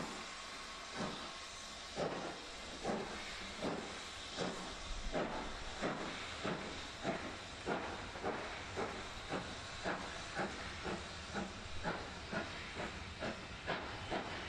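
BR Standard Class 7 Britannia Pacific 70013 Oliver Cromwell working hard with a train. Its two-cylinder exhaust beats quicken from about one a second to over two a second as it gathers speed, over a steady hiss of steam.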